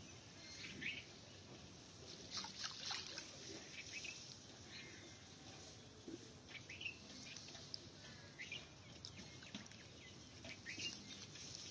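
Faint birds chirping outdoors, with small splashes and drips of water as a wet cast net is hauled in at the pond edge.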